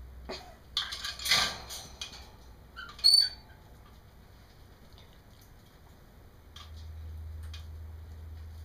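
African grey parrot vocalizing: rough, noisy calls in the first two seconds, then one short high whistle about three seconds in, followed by a few faint clicks.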